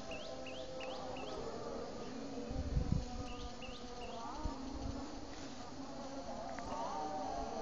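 A steady buzzing drone, with trains of quick rising chirps in the first second and a half and again about halfway through, and a low thump about three seconds in.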